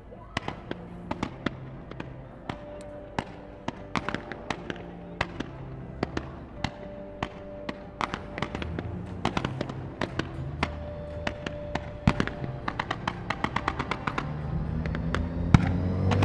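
Fireworks going off in a string of sharp reports, sparse at first and coming faster in the second half, with a loud bang near the end. Music with long held notes plays underneath and swells toward the end.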